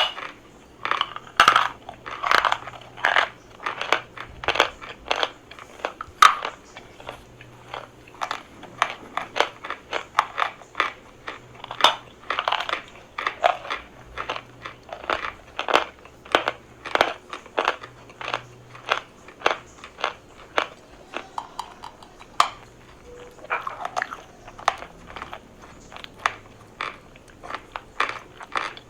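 Dry chalk being bitten and chewed close to the microphone: a run of sharp, crackling crunches, irregular, a few each second.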